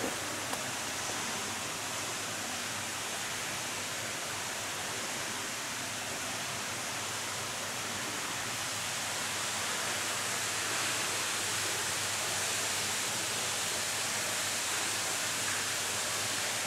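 Steady rushing noise echoing through an underground railway tunnel station, growing slightly louder about ten seconds in.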